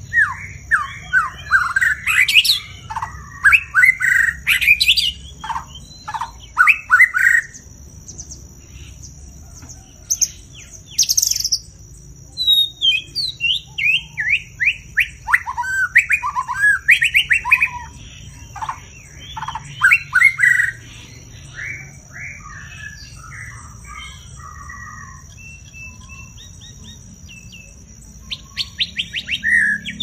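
White-rumped shama singing loud: phrases of quick, varied whistles and sliding notes, with short pauses between them and softer notes for a few seconds two thirds of the way through. A steady high-pitched tone runs behind the song.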